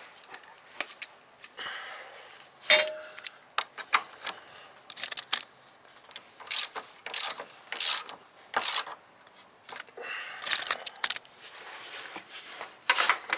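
A hand ratchet wrench clicking in short bursts as it is swung back and forth, snugging a suspension bolt on a car's underside. There is a single ringing metal clink about three seconds in.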